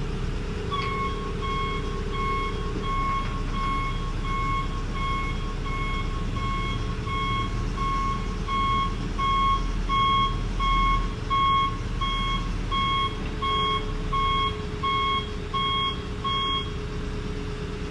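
A machine's reversing alarm beeping steadily at about three beeps every two seconds, over its running engine, as it backs up while the generator is being positioned. The beeping stops near the end.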